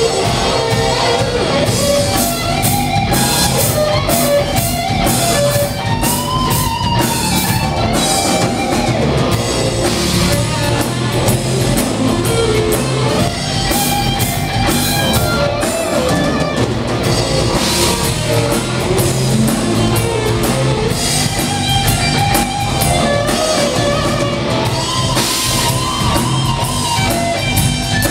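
Live rock band playing an instrumental passage: electric guitar lines over a driving drum kit with steady cymbals, loud and continuous.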